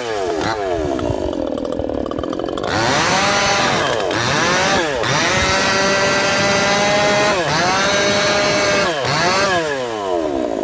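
Yasuka two-stroke chainsaw revving up and down. It drops to idle about a second in, climbs back to high revs and holds there for several seconds with brief dips, then falls and rises again near the end.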